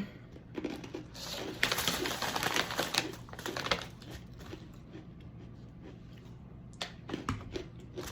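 Crinkling and clicking of plastic packaging being handled, in a run of bursts over the first few seconds and again near the end.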